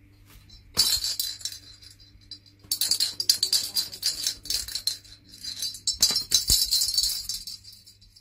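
Window blind slats rattling and clattering in three bursts as the paper dragon puppet pushes against them.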